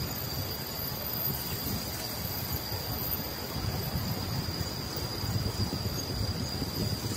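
Low, steady rumble of a bicycle rolling over a wet, debris-strewn road, with wind buffeting the microphone and a faint steady high-pitched whine above it.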